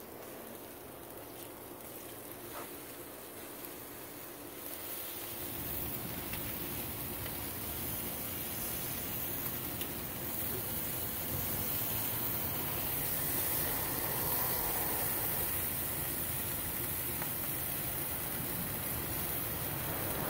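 Marinated chicken sizzling on a charcoal grill: a steady hiss that rises about five seconds in and holds, louder again near the end.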